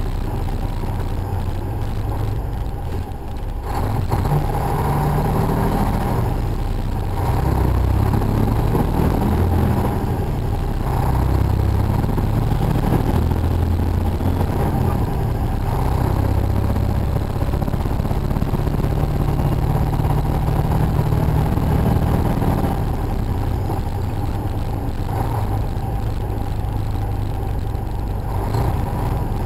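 Truck engine and road noise heard inside the cab through a camera's built-in microphone. The low engine note shifts up and down in pitch as the truck moves with traffic.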